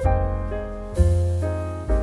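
Background piano music, with slow sustained chords and a new one struck about every second.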